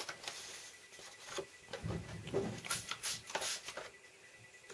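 A few short hissing spritzes from a pump-spray bottle of Shimmerz Spritz mist, about halfway through, among the rustle and handling of a paper mask held over the canvas.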